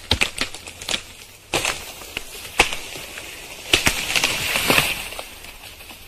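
Wood cracking and snapping as trees are cut, in irregular sharp cracks, with a denser rustling crackle about four seconds in.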